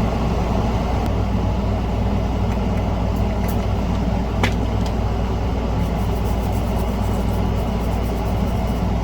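Steady low hum and rushing noise, like a fan or motor running, with a few faint small clicks; the clearest comes about halfway through.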